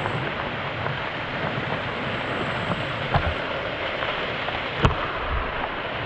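Waterfall water pouring and splashing straight onto the camera, a steady dense rush close on the microphone. Two sharp knocks cut through it, about three seconds in and again near five seconds.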